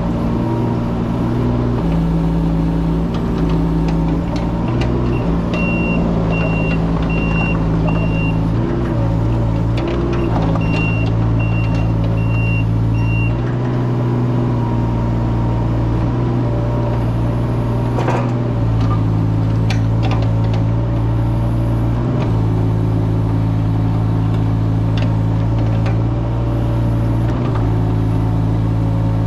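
Mini excavator's diesel engine running, its note shifting as the hydraulics take load. A travel alarm beeps steadily, a bit more than once a second, in two runs of about three seconds each. A few sharp knocks stand out over the engine.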